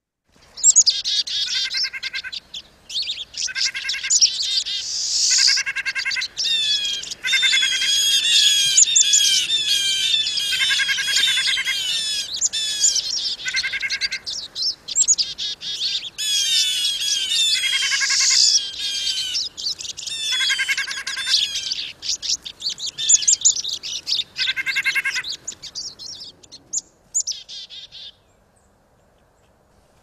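Busy bird-feeder soundscape of overlapping calls from four species: pine siskins, black-capped chickadees, a nuthatch and a blue jay. The siskins make many varied twitters and wheezy notes. Short nasal calls recur every couple of seconds through the dense chirping, and the recording stops about two seconds before the end.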